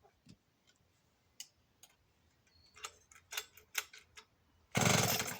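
Clicks and knocks as a Canadien PM270 two-stroke chainsaw is handled. Near the end comes a loud, short burst of rapid pulses as the saw is pulled over on its starter cord, and it does not catch.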